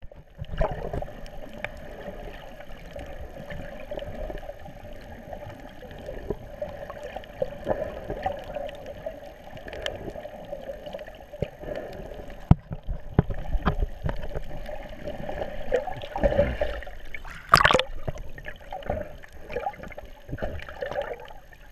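Muffled underwater water noise, sloshing and gurgling, heard through a camera held underwater, with scattered small clicks and knocks and one brief louder gurgle about three-quarters of the way through.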